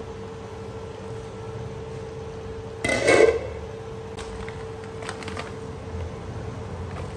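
Glass wok lid lifted off and set down with a short, loud clatter about three seconds in, over a steady hum from the induction cooktop. A few faint light clicks follow.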